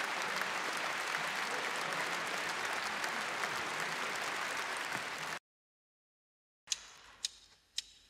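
Concert audience applauding, cutting off suddenly about five seconds in. After a second of silence come three sharp clicks about half a second apart, a count-in at the song's tempo.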